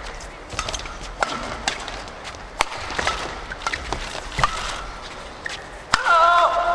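Badminton doubles rally: sharp racket hits on the shuttlecock at irregular intervals, mixed with short squeaks of court shoes on the mat. A louder, longer shoe squeak comes about six seconds in.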